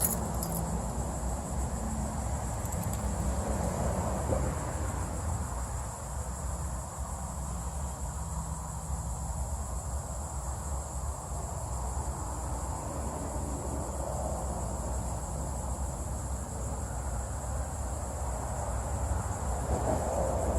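Insects chirring in a steady high-pitched chorus that never breaks, over a low, even rumble.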